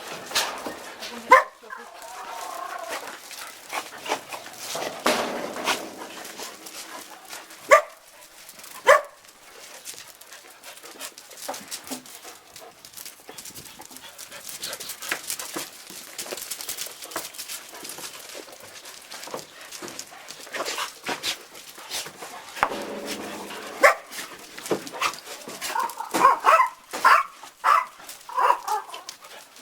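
Dogs barking on and off, single sharp barks at first and a quicker run of barks near the end.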